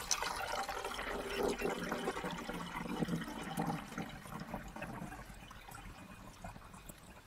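Water being poured into a plastic windshield-washer reservoir, a steady splashing fill that eases off over the last few seconds.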